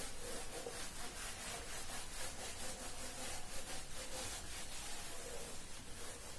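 Faint, steady scratchy rubbing of a heading being written out by hand, with repeated strokes a few times a second.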